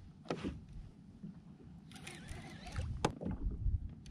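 Rod-and-reel handling aboard a fishing kayak at sea: a couple of light knocks and a short hiss about two seconds in, over a low rumble.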